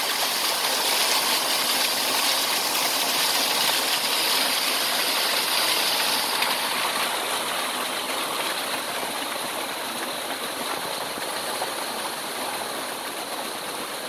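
Waterfall pouring into a pool, a steady rushing splash of falling water. The brightest hiss eases a little about six seconds in.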